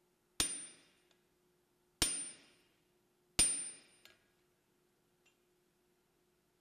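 Blacksmith's hammer striking the anvil three times, about a second and a half apart, each blow ringing out and dying away within about half a second.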